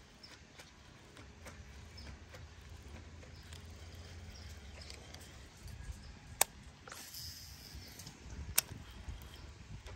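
Baitcasting rod and reel being cast: a sharp click about six and a half seconds in, a brief hiss of line running off the spool, then another sharp click about two seconds later, over faint scattered ticks and a low rumble.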